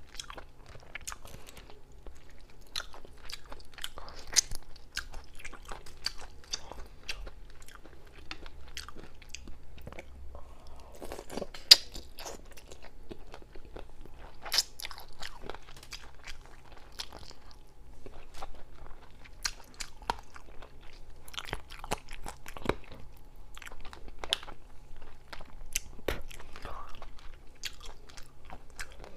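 Close-miked eating: steady chewing and crunching made of many small sharp clicks, with one louder snap about twelve seconds in.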